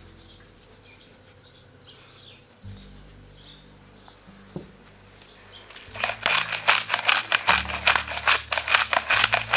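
Hand-turned pepper mill grinding black peppercorns: a fast, crackling rattle that starts about six seconds in and carries on. Faint birds chirp before it.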